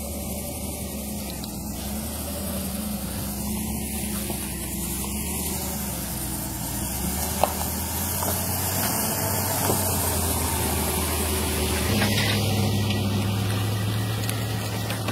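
Engines running steadily with a low hum: a pickup truck pulling an empty boat trailer up the launch ramp, then a pontoon boat's Evinrude outboard motor. The hum steps up in pitch about twelve seconds in.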